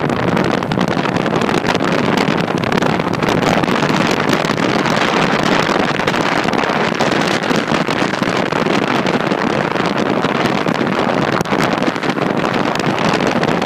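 Wind rushing over the microphone together with the road noise of a moving car: a loud, steady rush that does not let up.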